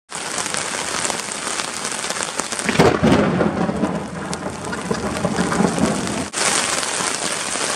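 Heavy rain pelting the fabric of a tent. About three seconds in, a loud clap of thunder breaks and rumbles for a few seconds before stopping abruptly.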